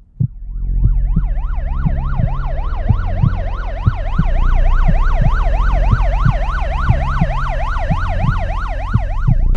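Police car siren in fast yelp, its pitch rising and falling about three times a second as the patrol car races along, over the low rumble of the car. It swells up within the first second.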